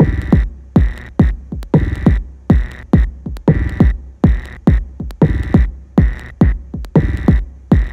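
Live techno played on hardware drum machine and synthesizers: a steady kick drum about twice a second, each kick dropping in pitch, with hissy hi-hat-like hits between the kicks.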